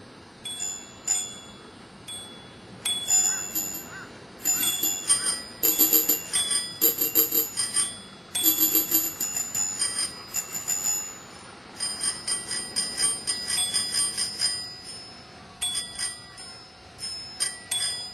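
Small bells played as music, struck in quick runs. Bright, high ringing tones overlap and ring on, with short pauses between the runs.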